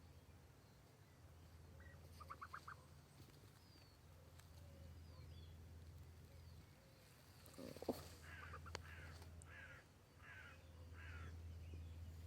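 Faint, soft trilling calls from goslings: a quick run of rapid notes about two seconds in, then a brief knock near eight seconds, followed by four short trills in a row.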